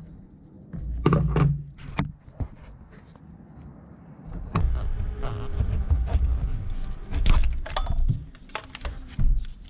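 Hands working among parts in a car's engine bay: scattered clicks and knocks, with patches of low thudding and rubbing, busiest in the second half.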